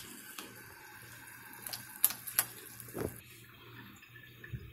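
Pot of water at a rolling boil, bubbling, with a few short sharp splashes and clicks about two seconds in as chunks of beef are dropped into it.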